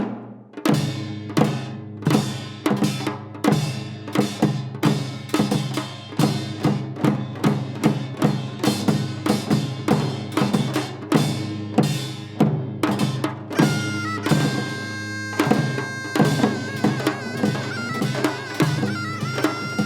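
Janggu hourglass drums playing a fast, steady rhythm of strikes in Korean traditional percussion music, starting just after a brief pause. About two-thirds of the way in, a wind instrument joins with a long, wavering held note.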